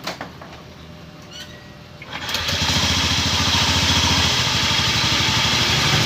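A Honda Scoopy scooter engine starts about two seconds in and runs with the belt drive cover off, making a very rough grating noise over the engine. The mechanic later traces this noise to a worn crankshaft bearing.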